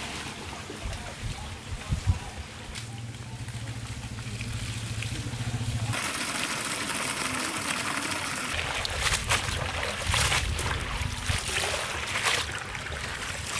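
Water from a hose running into a steel tray of spinach leaves as the leaves are swished and splashed by hand during washing. The running water becomes louder about six seconds in.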